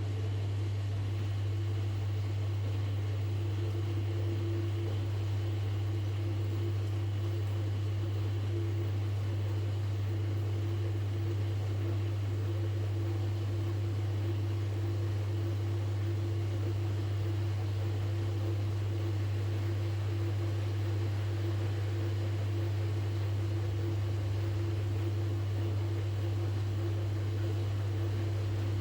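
Washing machine running with a steady low hum; a higher steady tone joins about four seconds in.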